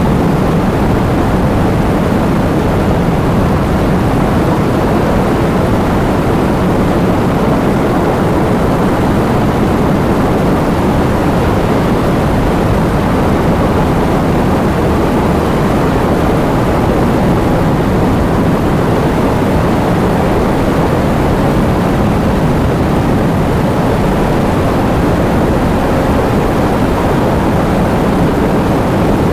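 Heavy rain falling, a dense, steady wash of noise weighted toward the low end.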